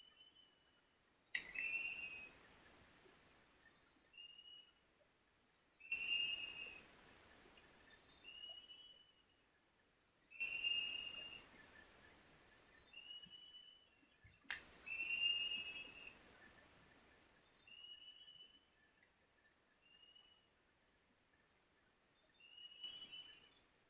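Insects calling: a steady high buzz throughout and a short chirp repeated about every two seconds. Several sudden rushing noises of a second or two each cut in over them.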